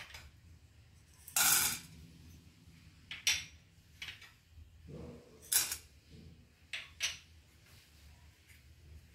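Whole spices (cardamom pods, black peppercorns, cloves, cinnamon and fennel seeds) tipped one after another into a metal pan for roasting, each addition a short rattle of small hard pieces against the pan; about six of them, the longest about a second and a half in.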